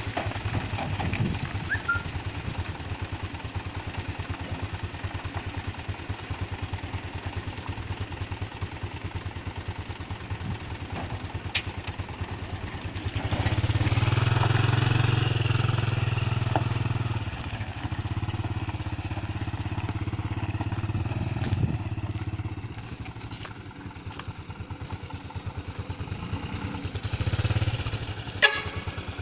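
Truck engine running steadily, louder for a few seconds from about 13 seconds in and again briefly near the end, with a sharp click just before the end.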